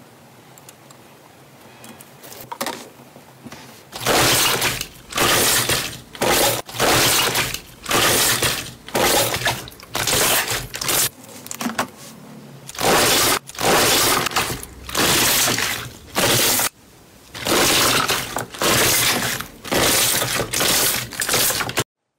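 Slime being pulled up through a wire cooling rack and worked by hand, crackling and popping as trapped air bursts out. It comes in loud crackly bursts about once a second, after a quieter start with a few soft clicks.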